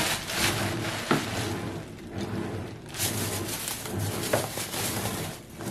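Bubble wrap and a thin plastic bag crinkling and rustling in irregular bursts as objects are wrapped and packed into a plastic storage tote, with an occasional light knock.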